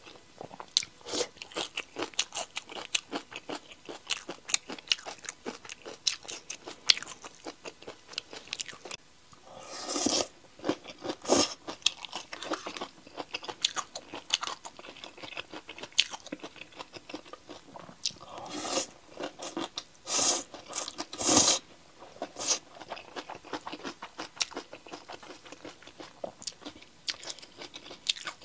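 Crunching and chewing of spicy pickled napa cabbage: many small crisp crunches in quick succession, with a few louder, longer bursts about ten seconds and about twenty seconds in.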